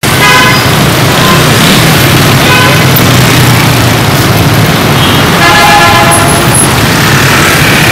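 Honda Win motorcycle engine running steadily under way in dense street traffic, with vehicle horns honking several times. There is a toot near the start, short ones about one and two and a half seconds in, and a longer one about five and a half seconds in.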